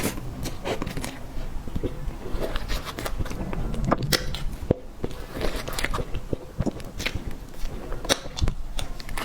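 Close-miked eating sounds: cake being bitten and chewed, with irregular small clicks and crackles.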